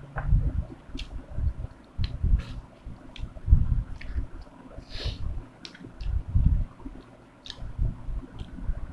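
Close-up eating sounds of rice eaten by hand: chewing and wet mouth noises in irregular low thuds, with faint light clicks of fingers against the plate.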